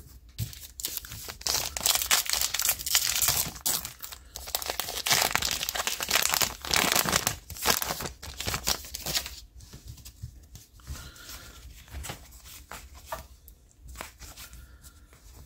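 Baseball card pack wrapper being torn open and crinkled for several seconds. After that it turns to quieter, scattered rustles and clicks as the cards are handled.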